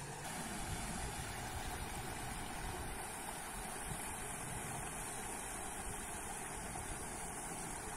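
Small field-edge waterfall pouring steadily into a muddy pool: an even rushing of water with no distinct splashes or breaks.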